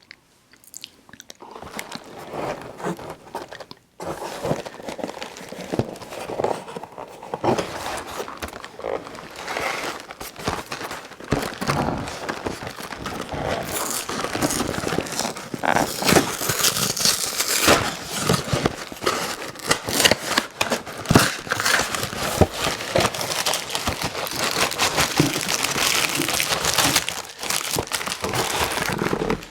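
Plastic snack-cake wrapper being crinkled and torn open, a dense crackling close to the microphone that grows louder about halfway through.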